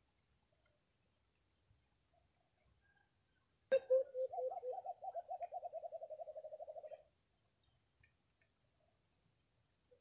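White-eared brown dove calling: a few low hooting notes that speed up into a quick run and fade out over about three seconds. A steady high buzz of insects runs underneath.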